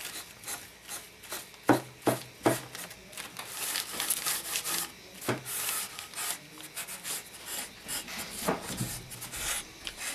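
Irregular rubbing strokes on a wooden clock case as stain is worked into it and wiped, broken by a few sharp knocks.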